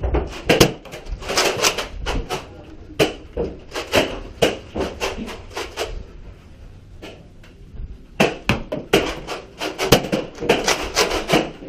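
Foam-dart blasters firing and darts striking doors and walls: three bursts of quick sharp clacks and knocks, several a second, with short lulls between them.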